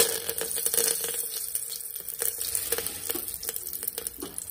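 Fresh curry leaves hitting hot oil in an aluminium pressure cooker, spluttering and crackling. A sudden burst at the start settles into a dense fizz of small pops that slowly dies down.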